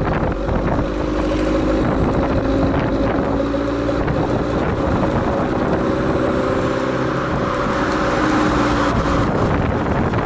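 Exhaust note of a 2014 Fiat 500L's 1.4-litre turbocharged four-cylinder, recorded right at the tailpipe while driving at a fairly steady engine speed, with wind rushing over the microphone.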